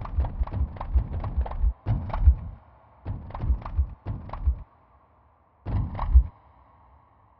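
Sonified earthquake swarm: recorded seismic waveforms sped up a thousandfold, one sample triggered per tremor, its pitch set by the quake's depth and its loudness and length by its magnitude. Heard as clusters of low thuds with sharp clicks, in bursts of about a second with short gaps between them, and a faint hum in the gaps.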